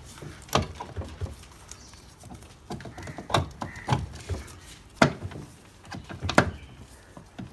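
Metal clicks and knocks as the Suzuki Access 125's rear driven pulley and drive belt are worked off the shaft by hand. About half a dozen irregular sharp knocks, the loudest about five and six and a half seconds in.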